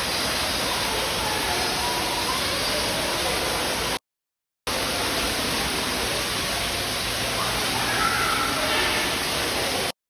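Steady rushing background noise with a few faint bird chirps over it; it cuts out for under a second about four seconds in.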